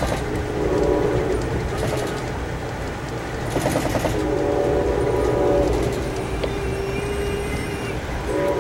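Train locomotive horn sounding two long blasts a few seconds apart, then a long single note and another blast near the end, heard from inside a moving passenger coach over the steady low rumble of the train running on the rails.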